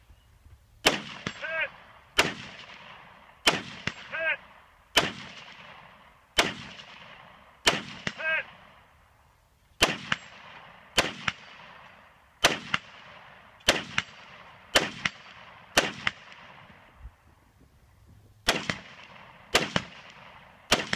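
Rifle fired in single aimed shots, about one every second, each with a short echo; after a few of the shots a short ringing tone follows. The shots pause for about two and a half seconds before three more near the end.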